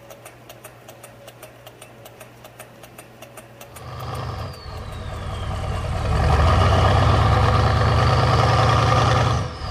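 Model Stirling engine running on the heat of a wood stove, ticking evenly about four times a second over a faint low hum. About four seconds in, a much louder engine-like sound with a falling whoosh takes over for the outro and drops off sharply near the end.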